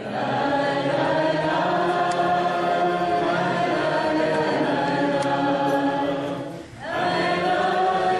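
Choir singing held chords as intro music, with a brief break about six and a half seconds in before the singing resumes.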